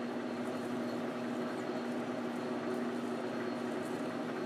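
Precision Matthews 1236-T metal lathe running steadily with a constant hum while a carbide parting tool cuts into a spinning 304 stainless steel round bar.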